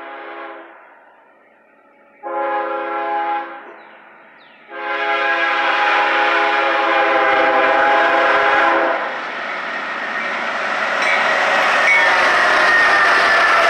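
CSX GE ES40DC freight locomotive's air horn sounding a crossing signal: a held note ending about half a second in, a short blast around two seconds in, then a long blast of about four seconds. After it the lead locomotives and the train's wheels on the rails rumble past, growing louder near the end.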